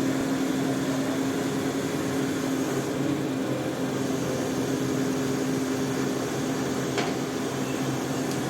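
Heavy construction machinery engine running at a steady speed, a constant hum. A single sharp click sounds about seven seconds in.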